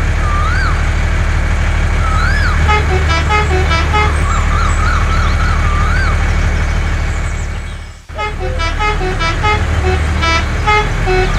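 A motor vehicle engine running steadily, with a musical horn tooting a quick tune of short notes twice and chirping whistles over it. The sound cuts out briefly about eight seconds in, then resumes.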